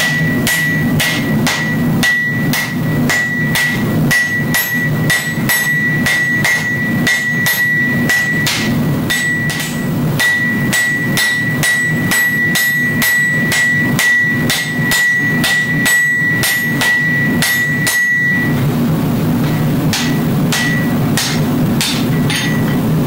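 Hand hammer blows on a glowing Damascus steel billet held on the anvil, about two strikes a second, with the anvil ringing at one steady pitch under the blows. The hammering and ringing stop about 18 seconds in, followed by a few lighter strikes, over a steady low hum.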